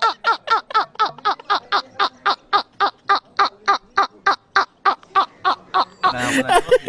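High-pitched laughter in quick, even 'ha-ha-ha' pulses, about four or five a second, stopping shortly before the end.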